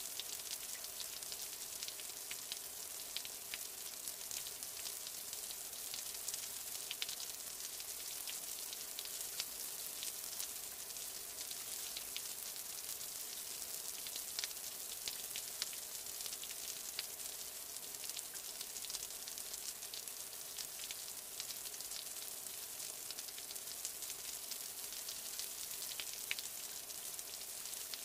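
Steady rain falling, an even hiss with many small drop ticks scattered through it.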